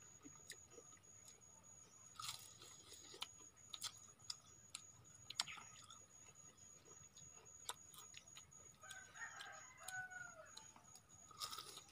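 Near silence, with faint scattered crunches from chewing crispy fried swamp cabbage fritters, and a distant rooster crowing about nine seconds in.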